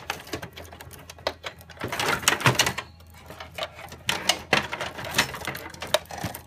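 Irregular clicks, knocks and rattles of metal and plastic parts being handled inside a Dell OptiPlex 755 desktop case as its power supply is worked loose.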